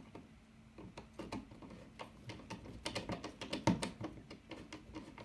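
Irregular small clicks and taps of a screwdriver working against metal and plastic, with the loudest knock about three and a half seconds in, as a mounting screw holding a USB wall outlet to its electrical box is tightened.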